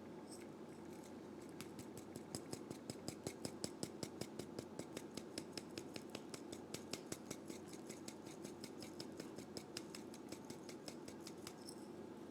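Rapid, even tapping of a kitchen utensil, about five or six strokes a second, starting just after the opening and stopping near the end.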